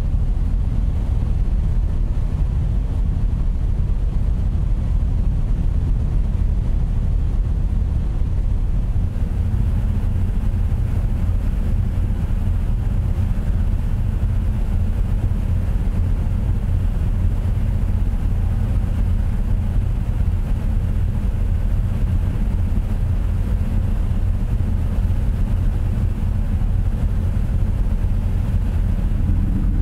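A ferry's diesel engines and funnel exhaust running with a steady low drone, heard from the open upper deck.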